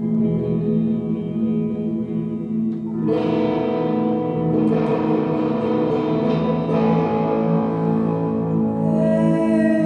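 Electric guitar playing sustained, ringing chords that grow fuller and brighter about three seconds in.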